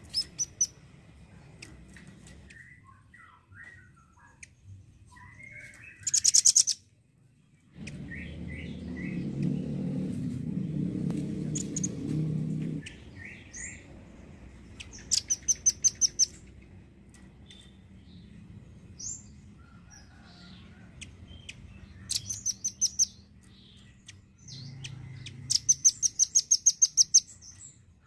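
Velvet-fronted nuthatch calling in rapid trills of high, sharp notes, about eight a second, in several bursts of one to two seconds, with softer chirps between them. A low rumble runs for about five seconds in the middle.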